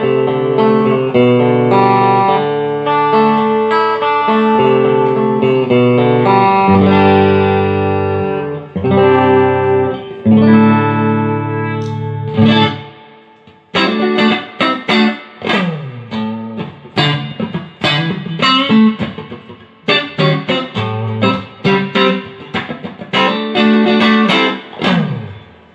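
Electric guitar played through a Fender Hot Rod Deluxe tube combo amplifier as a sound test after its repair for hum, buzz and power loss: held, ringing chords for about the first half, then short picked notes with bends and slides that fade out at the end.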